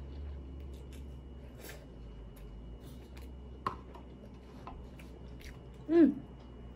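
A person quietly chewing a mouthful of instant ramen noodles, with a few light clicks. About six seconds in comes a short hummed 'mm', falling in pitch, which is the loudest sound.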